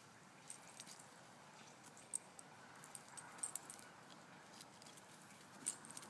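Faint, irregular clinking and jingling of a dog's collar and leash hardware as a Kai Ken shifts about, reared up against a tree trunk, with a few sharper clinks around the middle and near the end.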